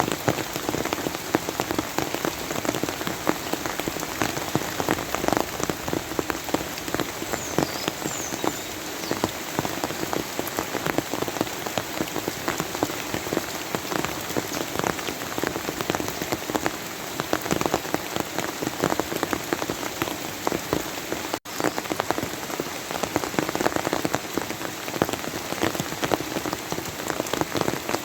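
Steady rain falling on a surface: an even hiss thick with the patter of individual drops. There is a split-second dropout about two-thirds of the way through.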